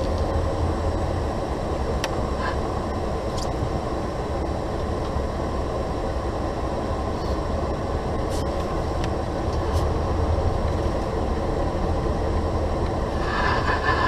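Steady in-cab rumble of a 2015 Volvo 670 semi truck on the move: low engine drone mixed with road and tyre noise, with a few faint clicks.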